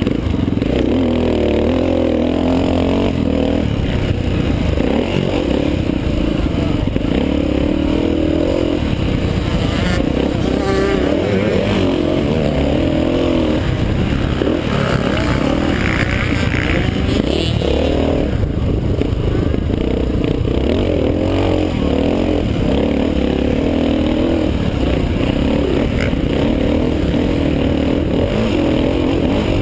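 Classic off-road motorcycle's single-cylinder engine, heard close up from the rider, revving up and falling back again and again as the bike is ridden round a dirt motocross track.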